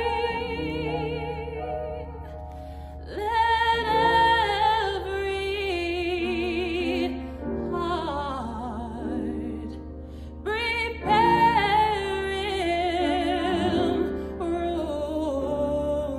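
A woman singing solo with strong vibrato over sustained accompaniment chords; her voice swells in two loud phrases about three and eleven seconds in.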